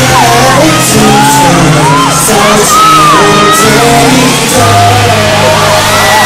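Loud live pop concert: amplified backing music with long sustained bass notes and a singer, with fans screaming and whooping over it in high rising-and-falling cries.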